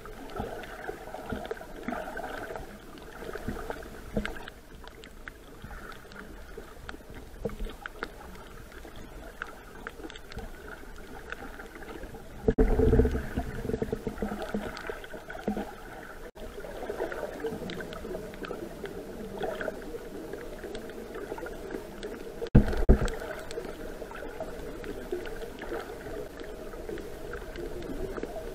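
Underwater ambience: a steady wash of water noise with a faint hum, broken by two louder muffled bumps, about 12 seconds in and about 22 seconds in.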